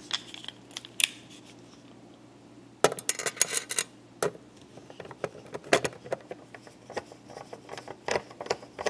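Small screws being driven into the sheet-metal cover of an electronics module with a screwdriver: a quick run of metallic clicks and scrapes about three seconds in, then scattered single clicks.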